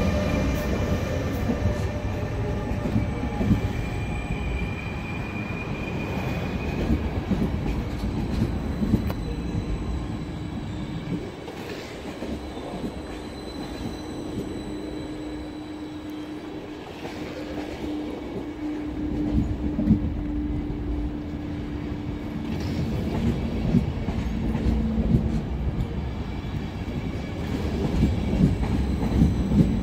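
Train rolling along the rails with a continuous rumble, high wheel squeal in the first several seconds and a low steady hum through the middle.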